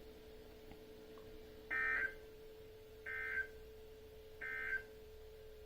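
Emergency Alert System end-of-message signal: three short bursts of the SAME digital data tone, a warbling chirp around 1.5–2 kHz, each about a third of a second long and evenly spaced a little over a second apart. A faint steady hum sits underneath.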